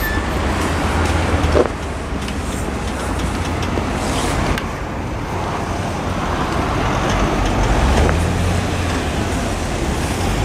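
Porsche Panamera Turbo's twin-turbo V8, breathing through a TechArt aftermarket exhaust, running at low revs with a steady low engine note as the car reverses and creeps off slowly. The note swells briefly about a second and a half in and again around eight seconds in.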